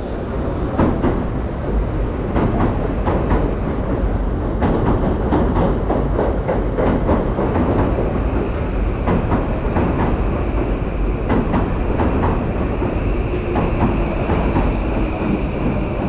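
Electric commuter train pulling into the platform: a steady low rumble, with the wheels clicking over the rail joints. A high steady whine joins in over the last few seconds.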